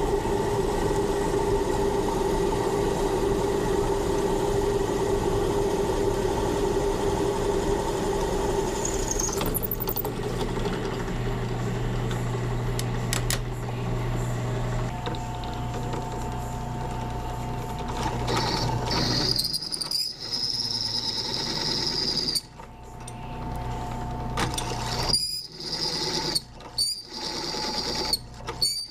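Drill boring holes through a steel knife blank: the motor runs steadily, and about two-thirds of the way through a high-pitched whine from the bit cutting the metal comes in several spells, with brief stops between them.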